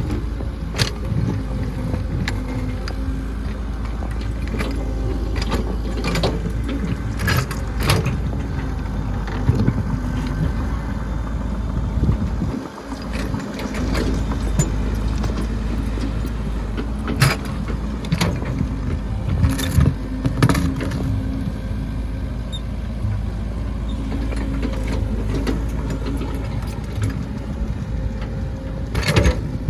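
Excavator running steadily while it strains to pry a giant stone, its hydraulics not strong enough to shift it, with scattered sharp knocks and a brief drop in the sound about halfway through.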